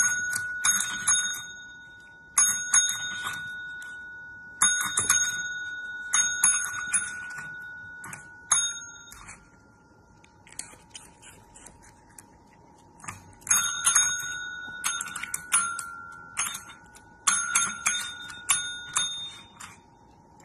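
Two dome-topped pet call bells rung over and over in quick bursts of dings, each strike ringing on. There is a pause of a few seconds about halfway, then more bursts.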